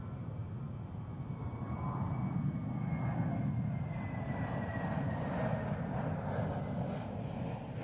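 Embraer KC-390's twin turbofan jet engines heard as the transport flies past: a low rumble that builds, peaks in the middle and eases off, with a thin whine that slides slightly down in pitch as it passes.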